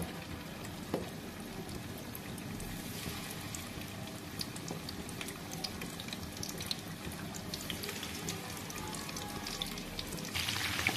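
Batter-coated chicken liver pieces deep-frying in hot oil in a pan: a steady sizzle with fine crackling pops, getting louder about ten seconds in.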